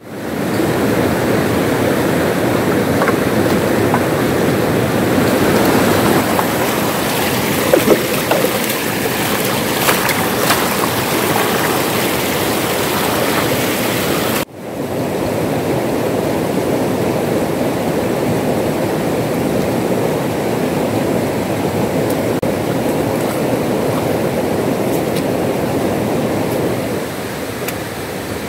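Whitewater river rapids rushing steadily over rocks. The sound cuts out for a moment about halfway through, then comes back slightly quieter near the end.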